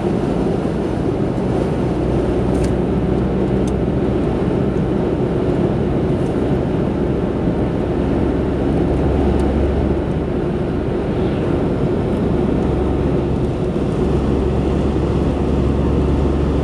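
A car driving at speed on an asphalt road, heard from inside the cabin: a steady drone of road and engine noise, with a deep low rumble that swells a few times.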